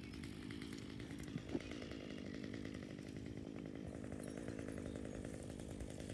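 A small engine running steadily at an even pace, with a fast, regular pulse, and one short knock about one and a half seconds in.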